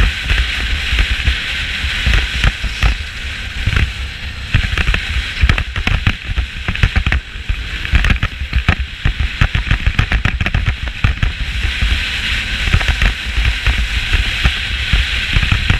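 A loose GoPro camera rattling in its snap-in mount on a moving motorcycle: rapid, irregular clattering over steady wind and road rumble.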